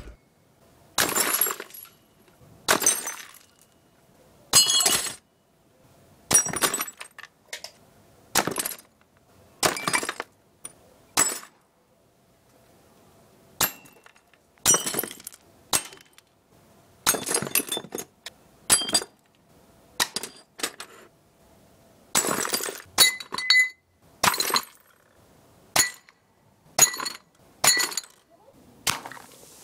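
Shots from a Mercury Mod 25 .177 break-barrel air pistol striking ceramic mugs and plates, heard as about twenty short bursts of clinking and shattering with brief silences between them.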